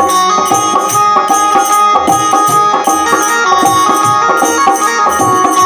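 Instrumental break in a Hindi devotional bhajan: a hand drum keeps a quick, steady rhythm under a melody instrument holding long notes.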